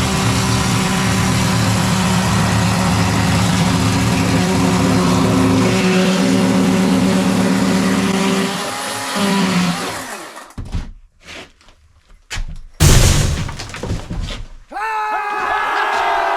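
Power saw running steadily while cutting through rotten wall sheathing, stopping about nine seconds in. A few knocks and one loud thunk follow, and near the end a whine rises in pitch.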